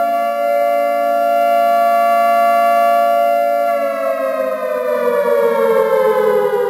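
Siren sound effect: a loud wail of several tones held steady, then sliding slowly down in pitch from about four seconds in as it winds down.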